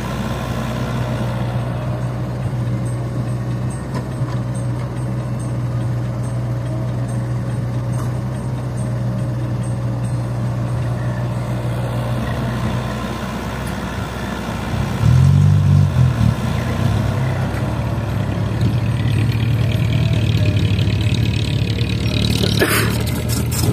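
Heavy diesel engine of construction machinery running steadily. About two-thirds of the way through it grows louder with a wavering pitch, as if working under load. A few sharp clanks come near the end.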